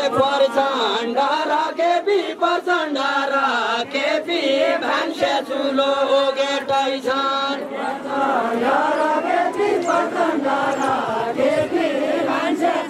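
Men singing a Deuda folk song together in chant-like chorus, one voice leading on a microphone, with short sharp knocks or stamps through it.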